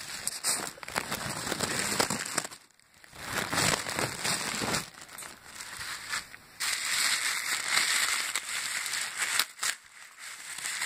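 Crinkly gift wrapping rustling and crackling as it is handled and pulled open close to the microphone, with brief pauses about three seconds in and again near the end.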